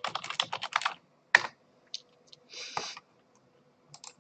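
Computer keyboard typing: a quick run of keystrokes for about a second, then a single louder key press. A short hiss follows near the three-second mark, and a few faint clicks come near the end.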